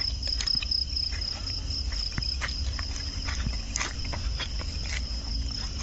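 Crickets chirping steadily at night, a continuous high trill, with scattered crunching steps and clicks of feet on dry stubble.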